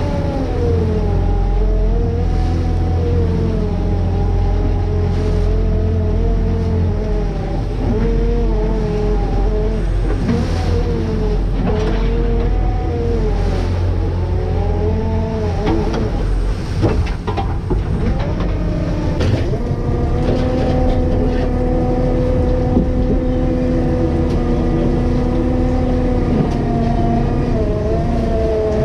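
Fishing boat's engine and deck machinery running: a steady drone with a higher note that wavers up and down in pitch, then holds steady about two-thirds of the way through. A few knocks come in the middle.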